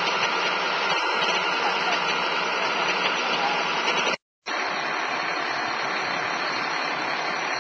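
Large emergency vehicle's engine idling with a steady hum. The sound drops out for a moment about four seconds in, then resumes a little quieter.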